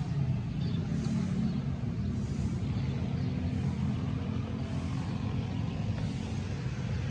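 Motorcycle engine running at a steady cruising speed while riding, a low even hum with wind hiss over it that swells and fades every second or so.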